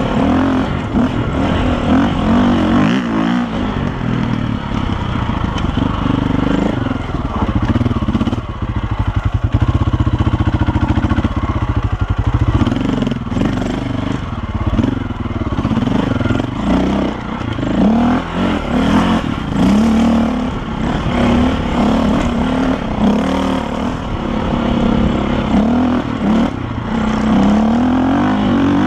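KTM dirt bike engine revving up and down with the throttle as it is ridden up a rocky trail. About a third of the way in it holds steadier and louder for a few seconds.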